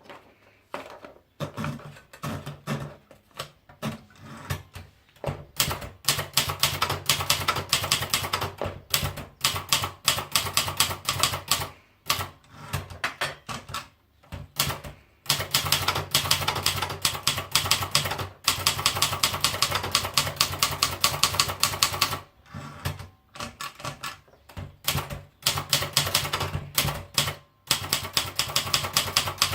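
Smith-Corona Silverette manual portable typewriter being typed on: quick runs of key strikes hitting the platen, broken by a few short pauses.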